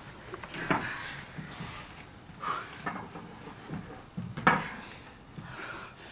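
Scattered knocks and thumps on a wooden floor, the loudest about four and a half seconds in.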